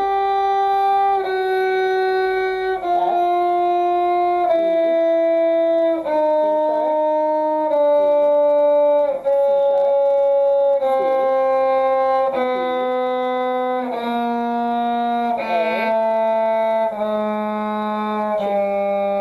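A bowed string instrument playing a descending one-octave chromatic scale from G down to G, twelve half steps, each note held about a second and a half.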